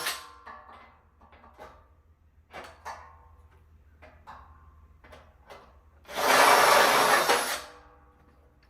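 Bolts being worked into a metal bed frame with hand tools: light clicks and knocks, then about six seconds in a loud burst of scraping tool noise lasting about a second and a half.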